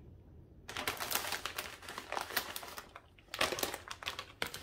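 Plastic bag of shredded pepper jack cheese crinkling as it is shaken out over a mixing bowl: a rapid crackling that starts after a brief quiet moment and pauses briefly past the middle.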